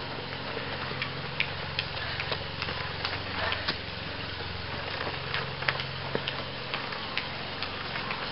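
Runners' footsteps on a dirt trail, heard as irregular short clicks and scuffs over a steady low hum.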